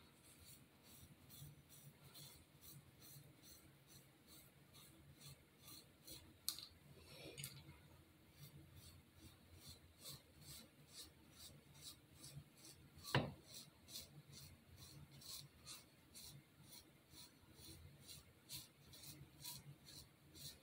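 Hand razor scraping underarm hair over shaving cream in short, faint, regular strokes about two a second, with one sharper click about 13 seconds in.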